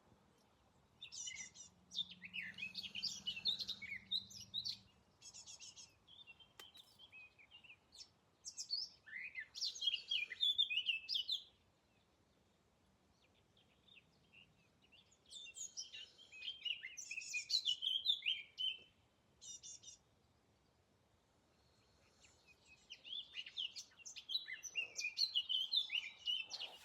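A songbird singing in quick, varied phrases of chirps and trills. There are four bouts of a few seconds each, with quiet pauses between them.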